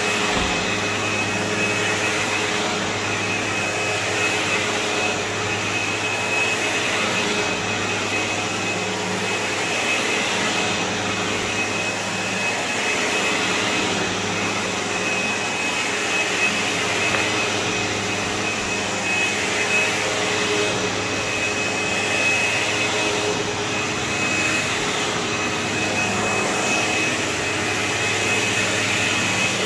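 Sebo X4 upright vacuum cleaner running steadily while being pushed over carpet: a constant motor hum with a thin high whine on top.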